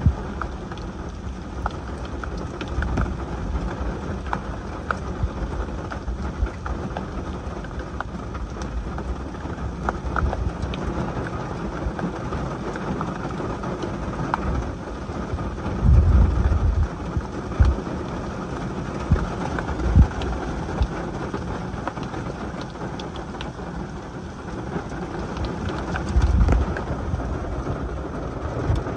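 Heavy rain falling steadily, heard from inside a car, with many small raindrop ticks. A few louder low rumbles come about halfway through and again near the end.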